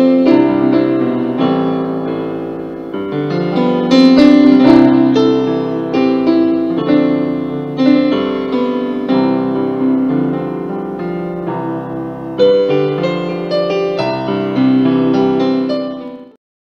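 Intro background music played on piano, with held chords and notes, fading out near the end.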